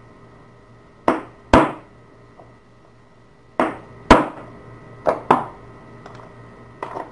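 Sharp knocks in about four pairs, the two knocks of each pair a fraction of a second apart, each with a short ring after it: hard metal parts struck or knocked together as a padlock is taken apart.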